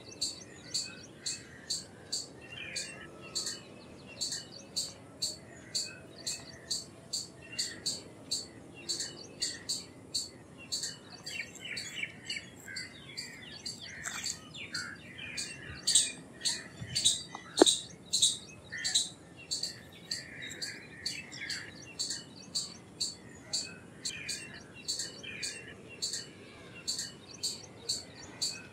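Indian palm squirrel chirping: short, high-pitched chirps repeated evenly about twice a second, with a louder flurry of calls about two-thirds of the way in.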